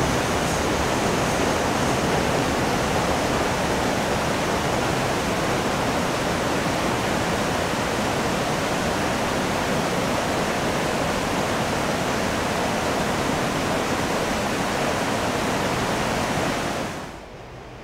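Steady rushing of flowing river water, dropping away sharply near the end.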